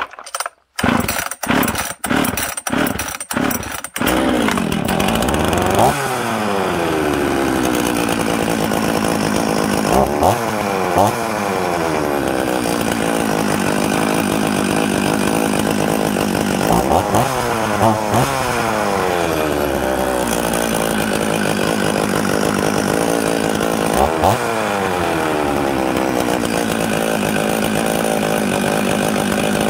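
Husqvarna 44 two-stroke chainsaw pull-started with several quick pulls, catching about four seconds in. It then runs steadily and is blipped up and back down to idle every few seconds while its carburettor is being tuned.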